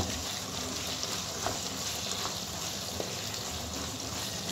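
Beef kheema with chopped onions and green chillies sizzling in a pan as it is stirred, a steady hiss with a few light clicks of the spoon against the pan.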